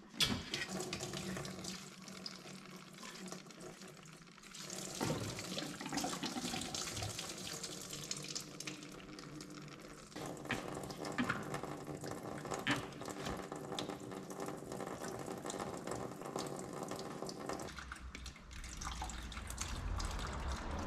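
Coolant running and splashing out of the radiator and its hoses as they are pulled off, a steady flow of liquid that gets heavier about four seconds in, with a few knocks.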